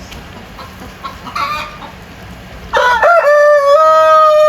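A rooster crowing: a short, faint call about a second and a half in, then one loud, long crow starting near three seconds in, rising briefly and then held at a steady pitch.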